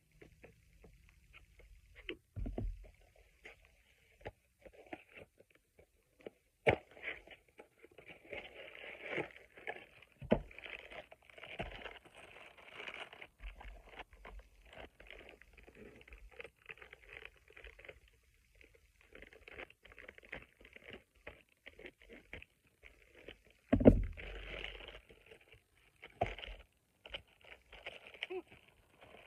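Hands opening a small cardboard box and clear plastic packaging: scraping at the box, rustling and crinkling of plastic, with scattered clicks and one heavy thump about three-quarters of the way through.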